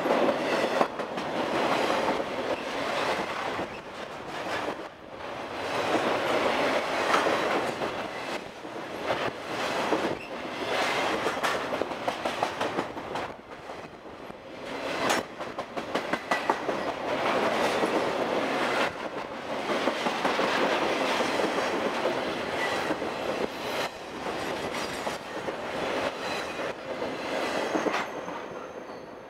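Intermodal freight cars carrying trailers and containers rolling past on the rails, with a steady rumble and wheels clicking over the rail joints. The sound swells and eases as cars go by, then drops away near the end as the last car passes.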